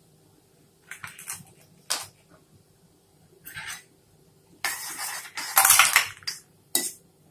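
A few separate clinks of steel utensils being handled, then, about five seconds in, a louder stretch of a steel spoon scraping and stirring in an iron kadhai of hot ghee with cumin and asafoetida.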